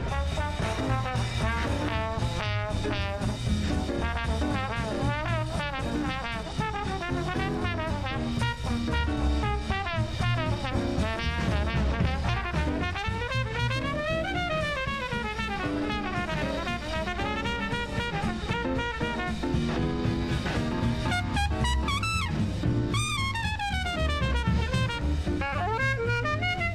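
An old swing-style jazz record with brass horns playing bending, sliding melody lines over a drum-kit beat.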